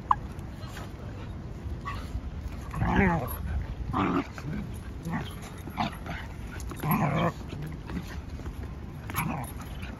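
Dogs play-fighting, giving short vocal outbursts every second or two, the loudest about three and seven seconds in.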